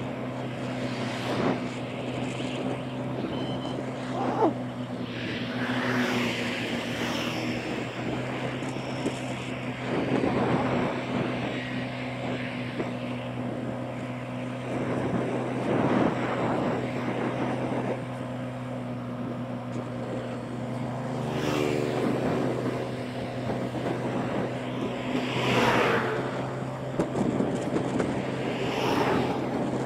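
Motorbike engine running steadily at cruising speed as a low, even hum, under rushing wind and road noise. Several brief swells of louder rushing noise come and go.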